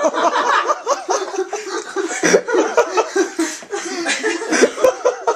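People laughing, with many short high-pitched giggles and chuckles following one another.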